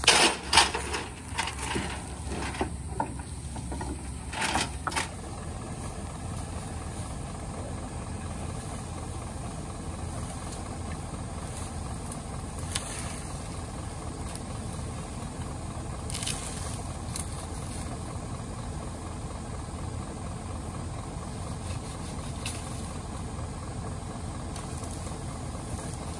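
Tilt-tray tow truck's engine idling steadily, with a run of loud knocks and clanks during the first five seconds.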